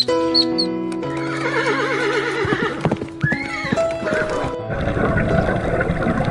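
A horse whinnies about a second in, its pitch shaking and wavering, followed by a few sharp clicks, over background music with sustained notes.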